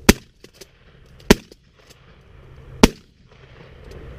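Three loud shotgun shots fired at a dove in flight, a little over a second apart.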